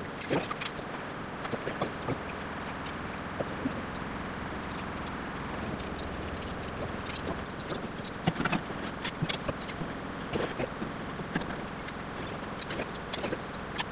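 Irregular light metallic clicks and clinks from handling a freshly machined aluminium part, its tools and chips, over a steady background hum. The clinks come thickest in the second half.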